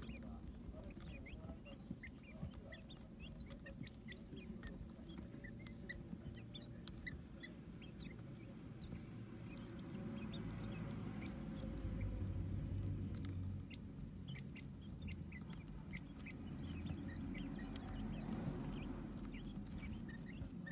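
Quail chicks peeping: many short, high chirps scattered throughout, over a low rumble.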